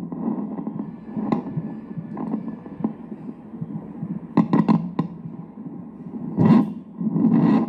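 Fetal heartbeat from a fetal Doppler monitor, heard through its speaker as rapid throbbing pulses. A few sharp clicks come around the middle and near the end.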